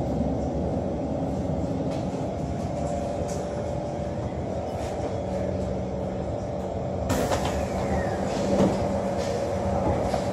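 Cabin of a Kawasaki C151 MRT train running slowly into the station with a steady hum. About seven seconds in, the saloon doors open with a sudden hiss and clatter.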